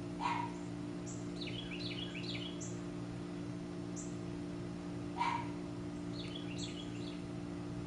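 Backyard birds calling: a loud call gliding downward, twice about five seconds apart, with quick chirping phrases between, and a short high note repeating about every second, over a steady low hum.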